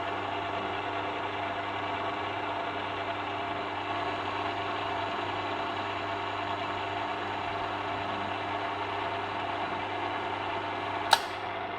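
Heavy-duty AC swing gate opener motors running steadily as they drive the gate leaves closed during the control panel's self-learning cycle, a constant mechanical hum. A single sharp click near the end.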